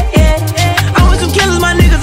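Hip-hop music: a beat with deep bass hits that slide down in pitch, about two a second, under a synth melody.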